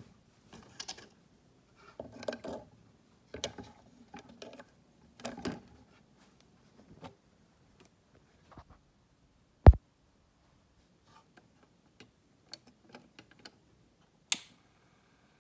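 Handling noises as a 7-inch vinyl record is set onto a turntable: scrapes and clicks in short bursts, then a heavy thump about ten seconds in, the loudest sound, and a sharp click near the end as the record starts spinning. No music plays yet.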